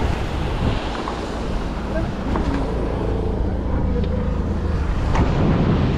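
A steady low motor rumble, with wind buffeting the microphone.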